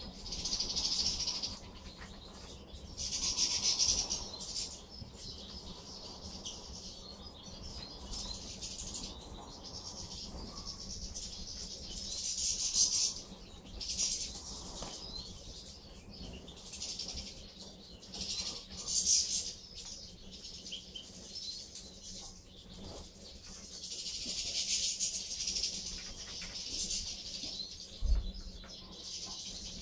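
A feeding flock of European goldfinches twittering in repeated bouts of high chatter, each lasting a second or two, with a faint steady low hum underneath. A single low thump comes near the end.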